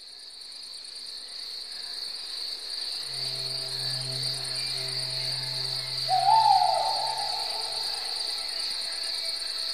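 Crickets trilling steadily in a high, even chorus that fades in. About three seconds in, a low hum and faint tones join it, and a louder gliding tone rises and falls about six seconds in.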